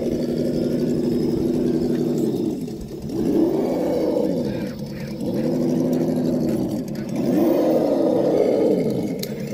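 Electric motor and geared drivetrain of a Traxxas TRX-4 High Trail RC rock crawler whining under throttle as it crawls over rocks. The pitch drops away and climbs again several times as the throttle is eased off and reapplied.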